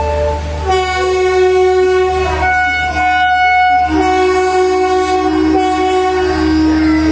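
WAP-4 electric locomotive's horn sounding a long multi-tone blast of several seconds, shifting pitch twice along the way, over a steady low hum.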